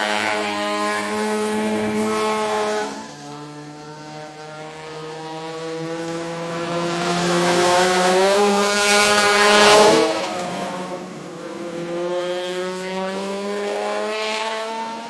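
Race car engine accelerating hard, its pitch climbing and then dropping sharply at gear changes, about three seconds in and again near ten seconds, where it is loudest, before climbing once more.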